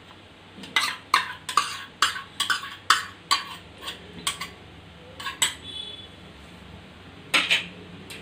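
Metal spoon clinking and scraping against a metal vessel, as ghee is scooped into the pan. About a dozen quick clinks come over the first five seconds, then one more near the end.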